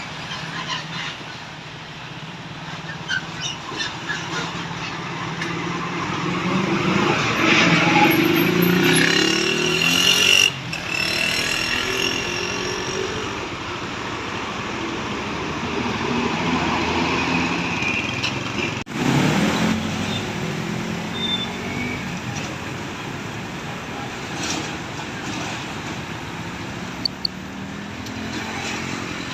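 Buses and other road traffic passing by, engines running. The noise swells to its loudest about eight to ten seconds in and breaks off abruptly twice, near ten and nineteen seconds.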